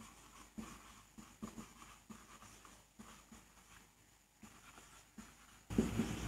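Faint scratching strokes of writing, a scattering of short soft ticks over several seconds. Near the end a low steady background noise comes up.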